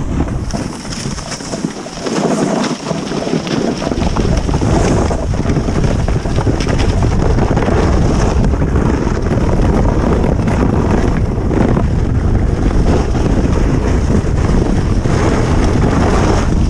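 Steady wind rush buffeting the microphone of a camera moving fast downhill behind a sled. The rumble gets heavier about four seconds in.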